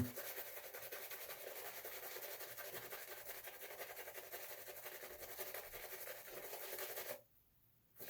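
Boar-bristle shaving brush being worked through a thin, foamy Williams mug soap lather, a faint steady rubbing of bristles. The sound cuts off to silence about seven seconds in.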